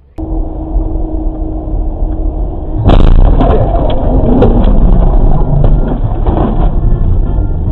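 Dashcam sound of a car being driven: loud, steady engine and road noise inside the cabin, with a few light knocks. About three seconds in it cuts to a different, louder recording of the same kind.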